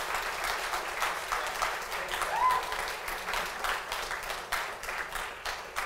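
Audience applauding, a dense patter of hand claps that thins to scattered claps near the end, with a short rising call over it about two seconds in.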